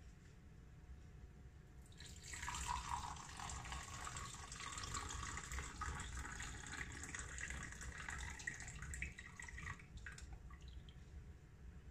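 Coffee poured from a pot into a ceramic mug: a steady stream of liquid splashing into the cup. It starts about two seconds in and stops about eight seconds later.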